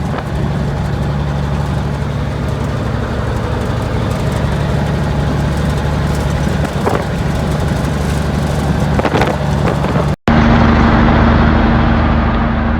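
Kenworth W900A semi truck's Cummins big cam 855 diesel running steadily at highway cruise, a constant drone with road and wind noise. About ten seconds in it cuts off abruptly and resumes as a steadier, more muffled drone with a stronger hum.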